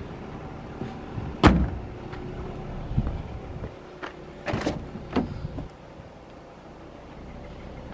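Audi RS5 Cabriolet's boot lid shut with a single loud thump about a second and a half in, followed by a duller thud and then a couple of sharp clicks as a car door is opened.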